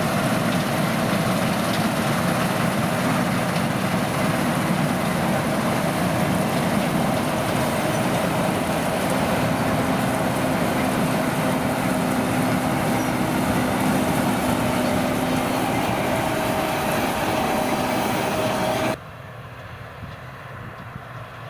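Claas Lexion 540 C combine harvester running, a loud steady mechanical din with a held whine in it. About nineteen seconds in it drops suddenly to a much quieter steady rumble.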